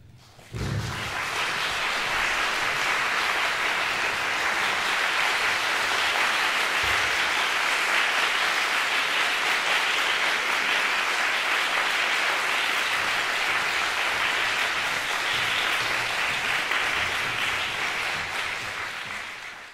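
Audience applauding. The clapping breaks out suddenly about half a second in, holds steady, and tapers off near the end.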